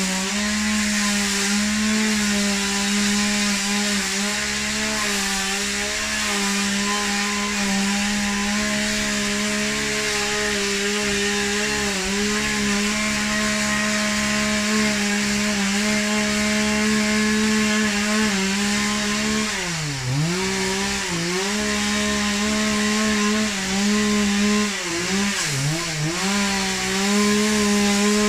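Chainsaw running near full throttle, cutting through cypress wood. It bogs down sharply about twenty seconds in and twice more a few seconds later, then picks back up to speed each time.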